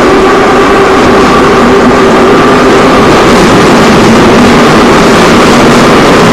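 Moscow metro train running between stations, heard from inside the carriage: a loud, steady rumble with a faint motor whine on top.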